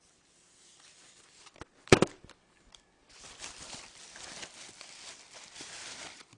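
Plastic packaging rustling and crinkling as a new camcorder is unwrapped, after a single sharp knock about two seconds in.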